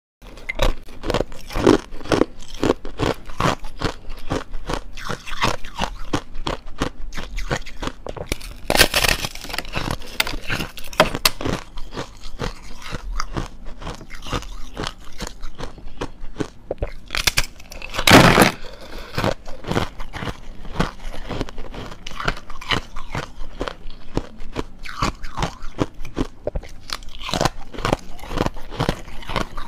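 Biting and chewing a block of frozen foam ice with a thin hard ice crust: a dense run of crisp crunches. Louder crunches come about 9 and 18 seconds in.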